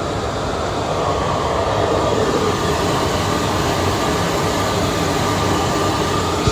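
Steady, loud machinery noise: a continuous low rumble with a hiss over it that does not change.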